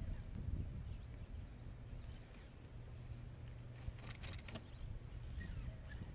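Steady high-pitched insect drone, with low wind rumble on the microphone. A brief rasping burst sounds about four seconds in.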